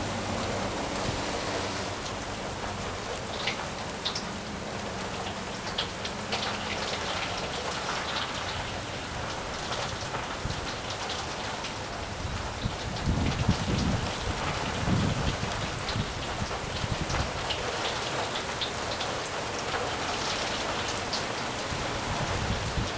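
Steady rain falling, with sharp hits of single drops close by. A few low rumbles swell up about halfway through.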